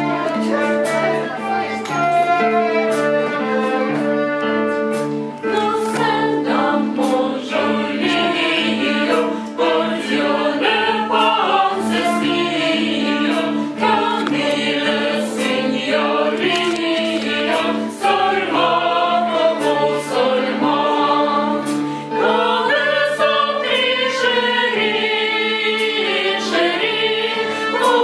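A group of voices singing together, accompanied by a small folk ensemble of fiddle, flute and accordion over a steady held low note.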